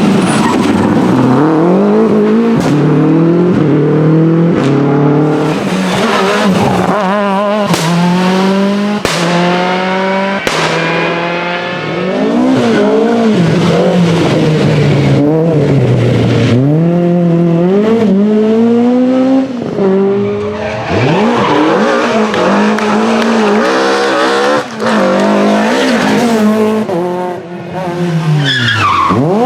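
Rally car engines revving hard, the pitch climbing through each gear and dropping sharply at each shift, with tyres skidding and a few sharp cracks.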